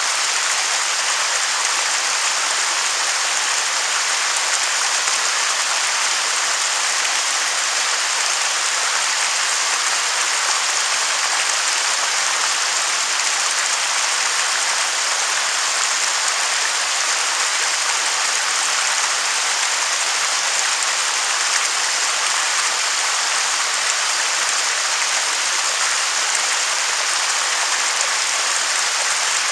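Waterfall rushing steadily: an even hiss of falling water that does not change.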